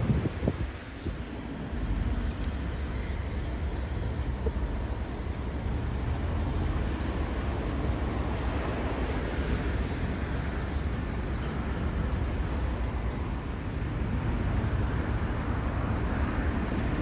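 Wind buffeting the microphone: a steady low rumble with a hiss above it and a few knocks in the first second.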